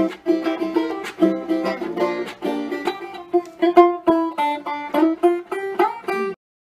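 Intro theme music on a plucked string instrument, a quick run of picked notes that stops abruptly about six seconds in.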